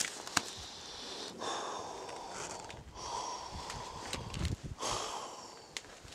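A person breathing hard: three long, noisy breaths of about a second and a half each, with short pauses between, and a couple of sharp clicks.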